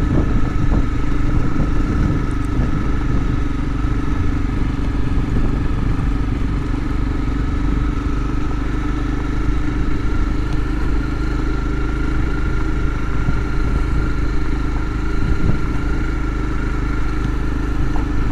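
Motorcycle engine running steadily while riding along a dirt road, heard from the rider's seat.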